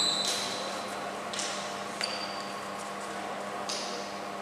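Badminton hall ambience: a few light taps and a short high squeak, typical of court shoes and play on the court, over a steady low hum.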